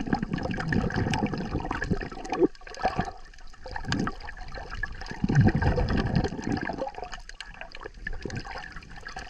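Water heard through an action camera's waterproof housing while it is held under the sea surface: a muffled rushing and sloshing that swells and fades in surges every few seconds, with a fine crackle above it.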